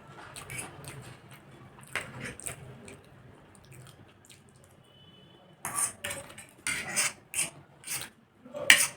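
Close-miked eating of instant noodles: wet chewing and mouth smacks with a few scattered clicks, then a run of loud sharp slurps and smacks from a little over halfway through.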